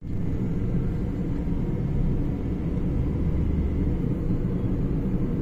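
Car on the road: a steady low rumble of engine and road noise, heaviest in the low end for the first few seconds.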